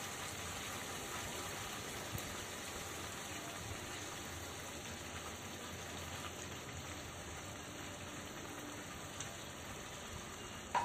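Yogurt-based masala gravy sizzling softly in a non-stick frying pan over a lowered gas flame, while fried fish pieces are laid into it by hand, with a few faint clicks.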